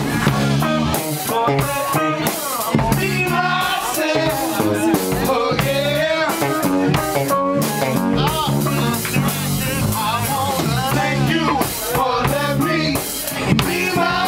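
Live band playing loud, with a Pearl drum kit keeping a steady beat under bass guitar, and a voice over it.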